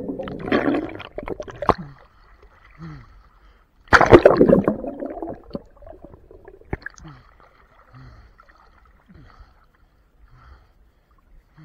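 Water gurgling and rushing, heard muffled from underwater, with a loud burst of bubbling about four seconds in that fades over a second or so; after that only faint scattered gurgles.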